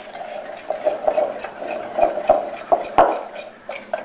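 Wire whisk mixing dry flour, salt and baking powder in a mixing bowl, its wires scraping and tapping against the bowl in quick, irregular strokes.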